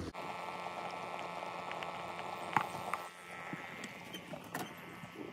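Faint steady background hiss with a few light clicks and taps.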